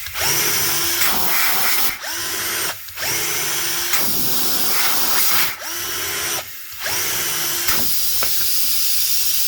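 Power drill fitted with a tire-repair rasp bit running in stretches, cutting out briefly and spinning back up to speed several times, its motor whine rising each time it restarts.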